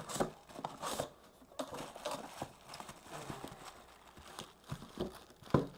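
Irregular knocks, clicks and rustling from unpacking and handling a new furnace inducer motor and its packaging.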